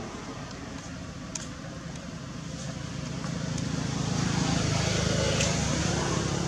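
A motor vehicle's engine running outdoors, growing louder from about three seconds in as it draws nearer, over a steady background and faint voices.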